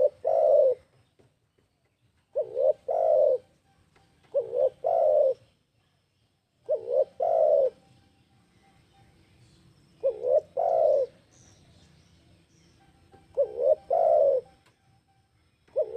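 Spotted dove (tekukur) cooing: about six phrases, each a short coo followed by a longer one, repeated every two to three seconds.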